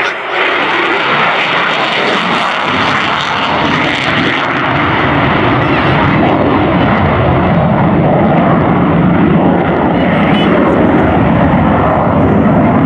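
Loud jet noise from an F-22 Raptor's two Pratt & Whitney F119 turbofans in afterburner during a high-power display manoeuvre. It is a continuous rushing rumble that grows deeper and slightly louder a few seconds in.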